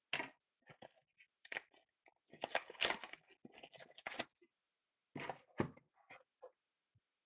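Crinkling and tearing of the clear plastic shrink wrap as it is stripped off a sealed cardboard box of hockey cards, with the box being handled. It comes in short crackling bursts, busiest in the middle and again briefly a bit later.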